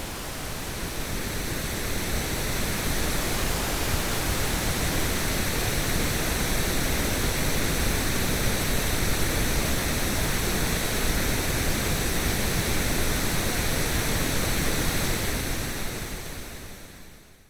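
Steady synthetic coloured noise, a full even hiss with a strong low rumble. It swells over the first couple of seconds and fades out near the end.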